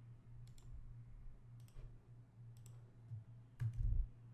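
Computer mouse clicks: pairs of short, sharp clicks about a second apart, with a louder cluster of clicks and a low thump near the end, over a faint steady low hum.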